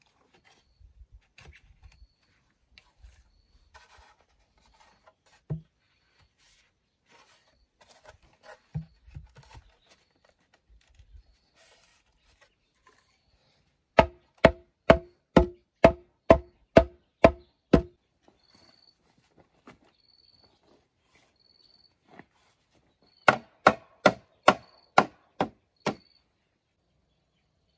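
Hollow bamboo being struck with a blade or tool in two runs of sharp blows, about two a second, each leaving a short ringing tone: nine blows, then after a pause about seven more. Before them, quieter handling knocks and scraping on bamboo.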